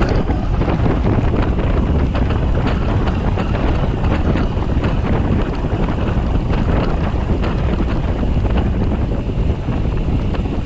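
Wind buffeting the microphone over the rolling noise of a gravel bike's tyres on a loose gravel track, with a constant patter of small clicks and rattles from stones and the bike.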